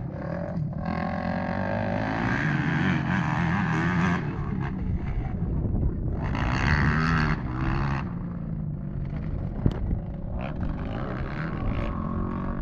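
Motocross bike engines running and revving on the track, their pitch rising and falling with the throttle, loudest from about six to eight seconds in.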